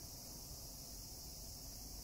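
Faint, steady chorus of night insects, a continuous high-pitched trilling with no breaks.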